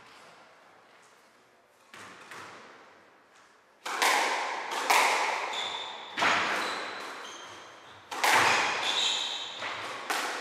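Squash rally: the ball smacked by rackets and off the court walls, sharp echoing hits every second or two, faint at first and much louder from about four seconds in. Brief high squeaks of shoes on the wooden court floor.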